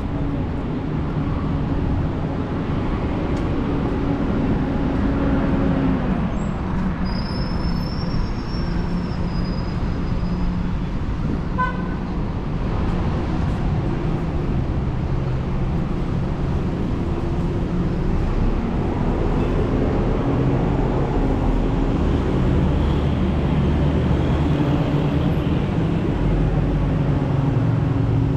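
City street traffic: a steady rumble of vehicle engines, with a short high beep about twelve seconds in.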